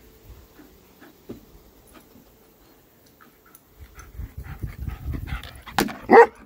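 A dog panting close to the microphone, then two short, loud barks about half a second apart near the end.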